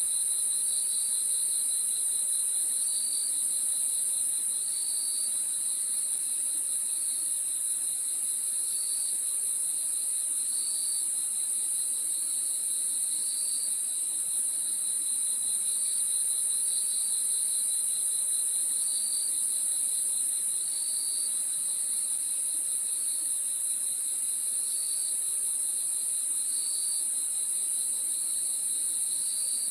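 Crickets chirping in a steady chorus: a continuous very high-pitched trill, with a lower pulsing chirp that repeats every second or two.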